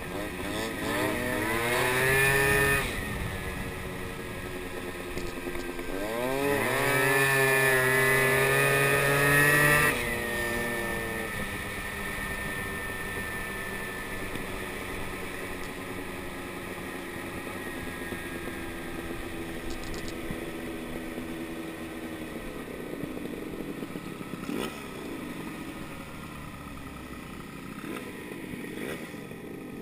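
Moped scooter engine under throttle, twice climbing in pitch as it speeds up, the second climb longest and loudest. It then eases off into a steadier, quieter run.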